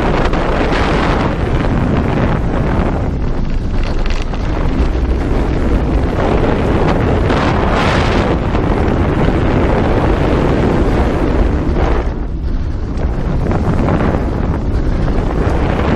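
Wind rushing hard over the microphone, with the rumble of an Intamin inverted roller coaster train running along its track, swelling and easing with the ride's turns and dipping briefly about twelve seconds in.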